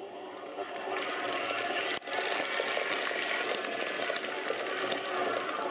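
Electric stand mixer running with its paddle attachment, beating canned caramel into whipped butter in a stainless steel bowl: a steady motor whir with the paddle churning the mixture, briefly cut off about two seconds in.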